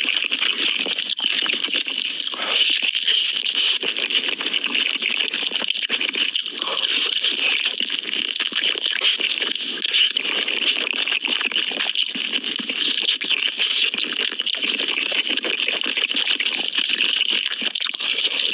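Close-miked chewing of Korean chicken: a steady, dense run of small crackles and mouth clicks.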